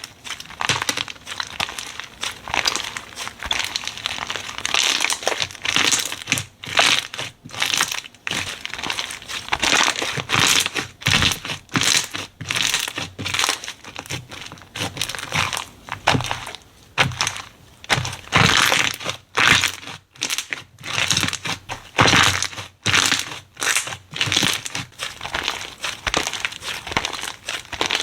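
Slime being squeezed, pressed and stretched by hand, giving an irregular series of short, noisy squishes about one or two a second.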